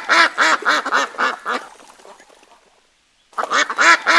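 Duck quacking in rapid series of about four quacks a second. The first run trails off, and a second run starts about three seconds in.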